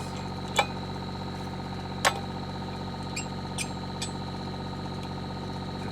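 Excavator engine idling steadily, with two sharp clicks or knocks about half a second and two seconds in and a few fainter ticks a little later.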